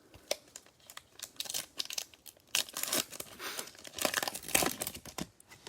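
A Stadium Club Chrome trading card pack wrapper being torn open and crinkled by hand, in irregular crackling bursts that are loudest about two and a half and four seconds in.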